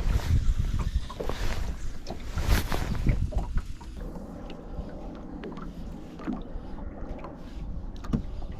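Wind buffeting the microphone and water lapping against a small boat's hull. It is gusty and rumbling for the first four seconds or so, then calmer.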